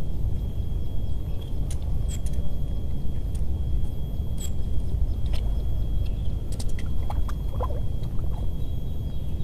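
Wind buffeting the microphone outdoors: a steady low rumble, with a faint thin high tone running through it and scattered light clicks.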